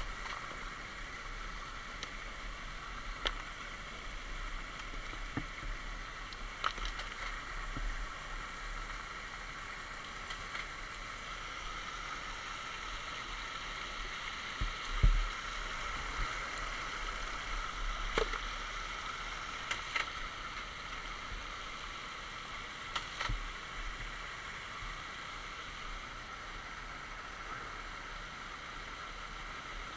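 Small rocky creek running steadily over stones, with scattered sharp knocks and one louder thud about 15 seconds in.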